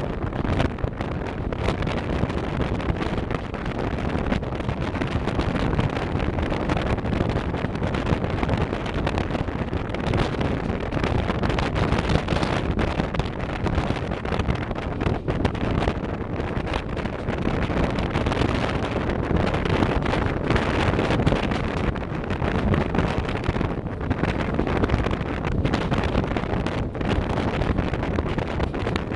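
Wind buffeting the microphone, a steady rough rumble with no break.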